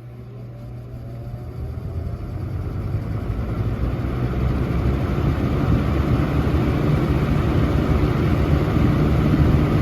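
Electric box fan spinning up on its medium setting: a faint motor whine rises in pitch in the first couple of seconds, then the rush of air and a low hum grow steadily louder. The fan is also making an odd extra noise that the owner can't explain.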